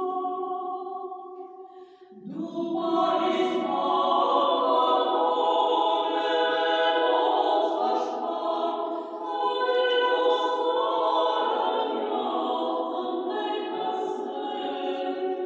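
A small choir singing Armenian chant a cappella in long held notes. The voices thin out and fade about two seconds in, then come back as a fuller held chord with a few soft hissing consonants.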